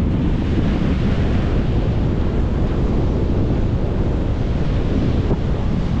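Rough sea surf breaking and washing around the legs of a pier, with a steady wind buffeting the microphone.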